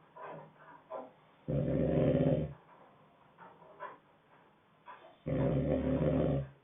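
A sleeping person snoring: two loud snores about four seconds apart, each lasting about a second, with softer breathing sounds between them.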